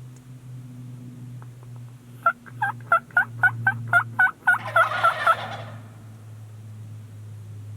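Turkey calling: a quick run of about ten evenly spaced notes starting about two seconds in, running into a rattling gobble near the middle. A low steady hum sits underneath.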